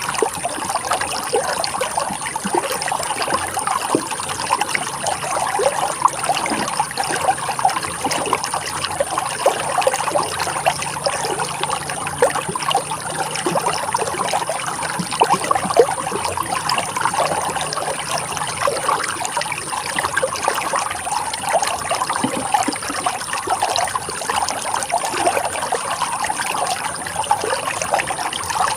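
Running water trickling steadily, a dense, even stream of small splashes with no pauses.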